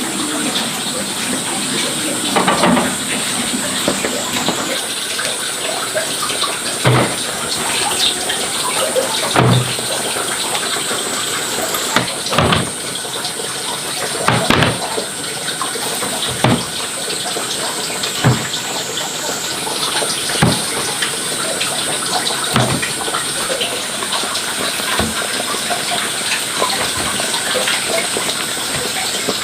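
Steady rush of running water, with dull knocks about every two seconds.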